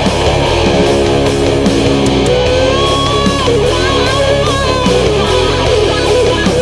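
Heavy metal music with distorted electric guitars and a steady driving beat; no vocals in this stretch.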